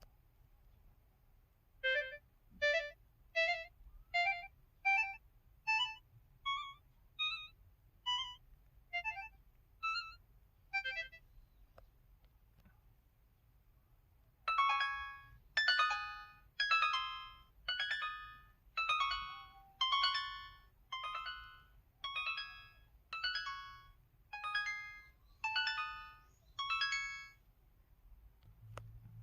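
SKY Vega Racer smartphone dial-pad key tones. First comes the 'Clarinet' set: about a dozen short clarinet-voiced notes, one a second, mostly stepping up in pitch. After a short pause comes the 'Harp' set: about a dozen plucked harp notes, one a second, each ringing out and fading.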